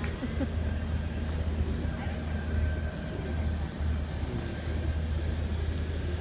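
Steady low rumble with a faint, steady high whine over it, like an engine or machinery running nearby.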